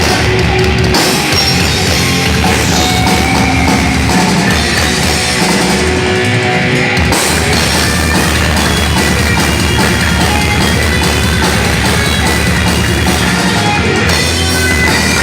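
A thrash metal band playing loud and steady: distorted electric guitars, bass and drum kit together. The low end drops out briefly about six seconds in, and the full band comes back in about a second later.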